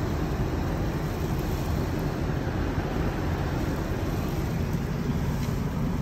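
Steady low rumble and hiss of a car, heard from inside the cabin, with no change in level.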